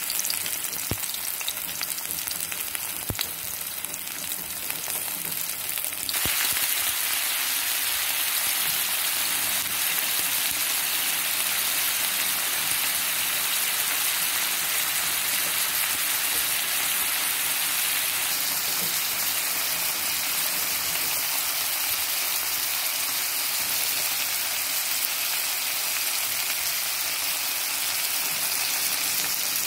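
Chopped onion and prawns sizzling in hot oil in a frying pan: a steady frying hiss that gets louder about six seconds in and then holds even.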